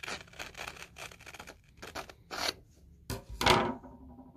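Scissors cutting through construction paper in a run of short snips, with paper rustling. About three seconds in comes a louder knock as the scissors are set down on the table.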